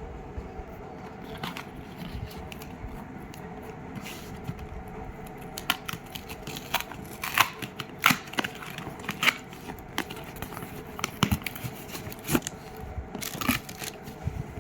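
Packaging being handled and opened by hand: a run of sharp crinkles, tears and clicks, sparse at first and coming thick and fast through the second half.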